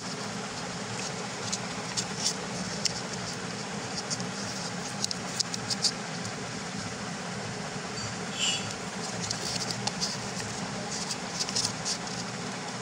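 Paper being folded and creased by hand: scattered short, crisp crinkles and ticks, with a longer rustle near the middle, over a steady background hum.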